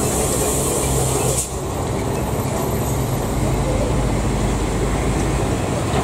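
Road traffic on a wet road: a truck's and a car's engines running at low speed, with an abrupt shift in the sound about a second and a half in.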